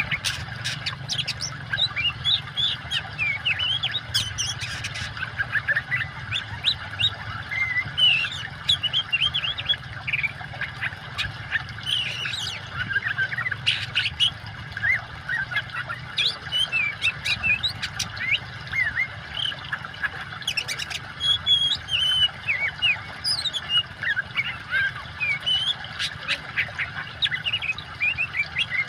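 Oriental magpie-robin singing non-stop: a fast, varied stream of whistles, chirps and harsh notes, over a steady low rush of water.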